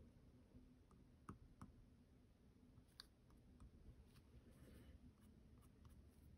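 Near silence: quiet room tone with a few faint, scattered light clicks.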